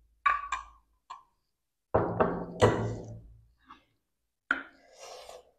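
A plastic spoon clicking against a small stainless-steel bowl, then a louder knock as something is set down on the table, then the crinkle of an ice-cream cone's wrapper being handled near the end.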